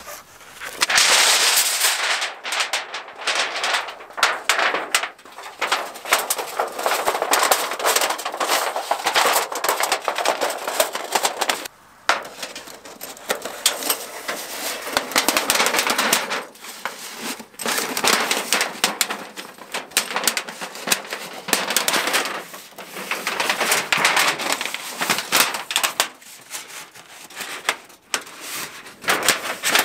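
Dry wood crackling and snapping in a dense, irregular run of sharp pops, with a short lull about twelve seconds in.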